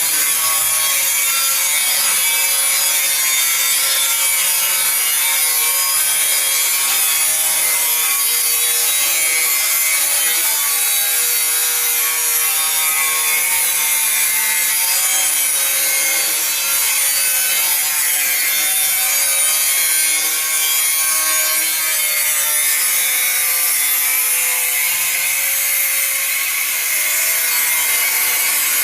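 A power grinder running steadily under load: a continuous loud grinding noise with a high whine whose pitch wavers slightly.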